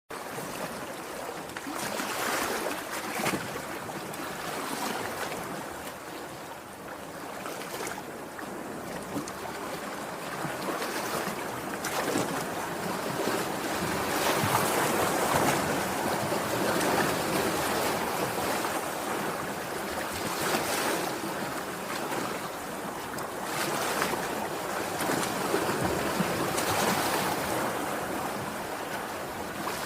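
Sea waves washing in and breaking, the surf swelling and easing every few seconds.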